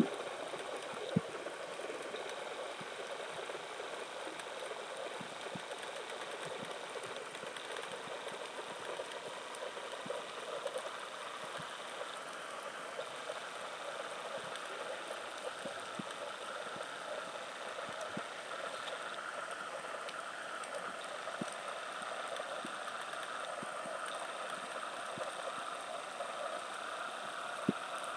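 Underwater ambient noise recorded below the surface: a steady watery hiss with scattered faint clicks.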